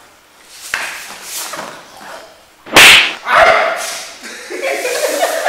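A sudden sharp crack about three seconds in, with a smaller hit just after it, then a wavering pitched sound near the end.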